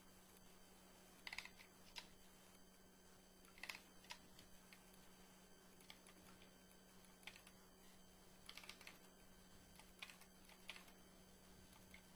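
Faint, scattered clicks of a computer keyboard and mouse, a few keystrokes at a time with pauses between, over a faint steady hum.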